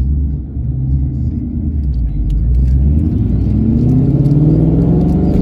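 Eight-cylinder car engine with a loud exhaust, pulling at a low steady rumble, then accelerating from about three seconds in, its pitch climbing.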